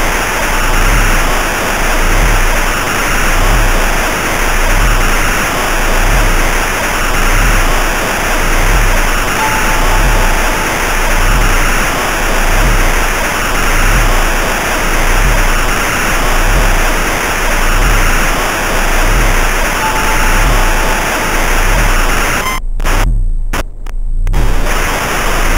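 Noise-heavy electronic soundtrack of an Amiga demo intro: a dense wash of hiss over a slow, regular bass pulse, with a short high tone coming back every ten seconds or so. Near the end the sound cuts out abruptly several times in quick succession, then resumes.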